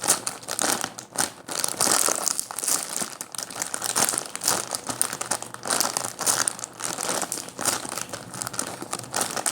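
Continuous, irregular crinkling and rustling of plastic as a squishy toy is handled.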